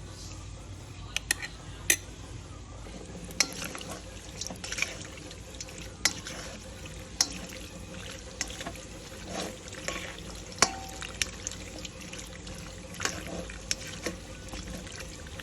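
Kitchen utensils clinking and tapping against cookware: sharp, irregular clicks scattered throughout, over a steady low hum.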